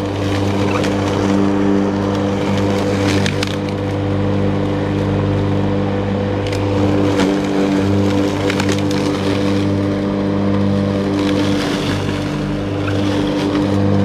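A motor runs steadily at a constant pitch, a low hum, with light scattered clicks and rustles over it.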